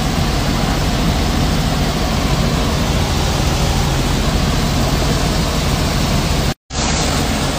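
Helicopter engine and rotor noise heard from inside the cabin: steady and loud, with a low hum underneath. It cuts out for a split second about two-thirds of the way through.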